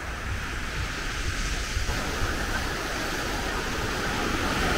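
Small sea waves washing onto a sandy beach: a steady rush of surf that slowly grows louder.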